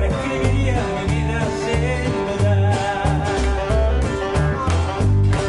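Live acoustic band playing an instrumental passage: plucked upright double bass, strummed nylon-string guitars, saxophone and light percussion with cymbal strokes.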